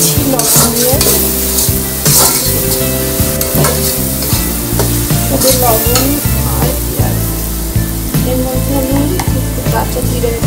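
Sliced onions sizzling as they fry in hot oil in a metal karahi. A steel spatula stirs them, scraping and knocking against the pan again and again.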